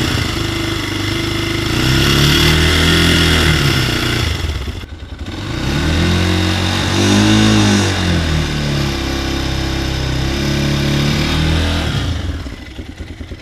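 Toro Rex250 motorcycle engine revved up and held at high revs twice, dropping off briefly in between and settling back to idle near the end. At the 4000–6000 RPM range it has a rattle like a loose washer, which the owner puts down to the balancer gear.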